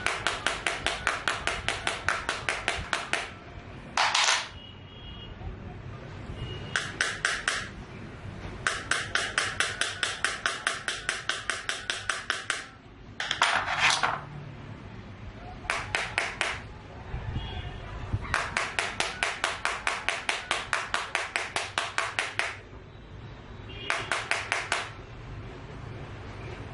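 A hard tool scraped rapidly back and forth across the Oppo F7's glass screen in a scratch test, about six strokes a second. The strokes come in bursts of one to four seconds, several times over, with short pauses between them.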